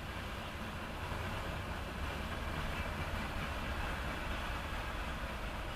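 Mixed freight train cars rolling past on the rails, a steady low rumble and rolling noise that swells slightly about a second in, heard through a dashcam inside a parked vehicle.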